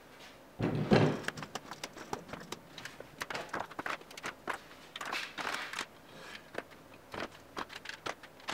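A heavy thud about a second in as the large plywood clamp rack is set into place, followed by a run of quick, uneven knocks and clicks of wood being handled.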